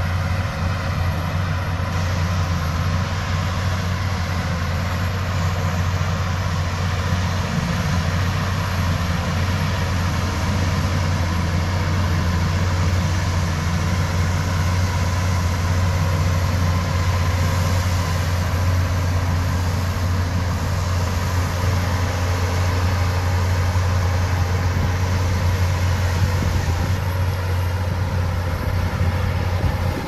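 Shantui crawler bulldozer's diesel engine running steadily under load as the dozer pushes soil, a low, even drone.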